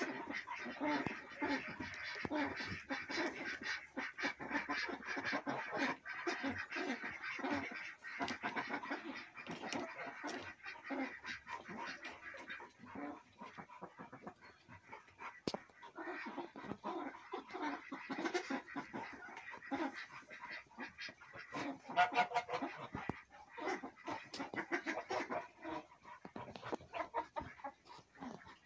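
A flock of chickens clucking and calling: many short calls overlapping, with a quieter stretch about halfway through.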